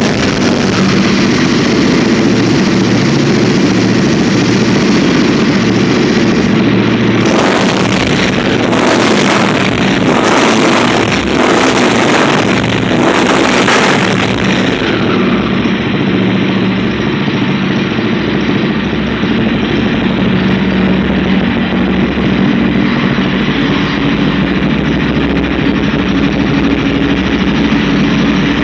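Honda XR 250 Tornado's single-cylinder four-stroke engine running at idle, with a run of quick throttle blips about seven seconds in that lasts some seven seconds before it settles back to a steady idle.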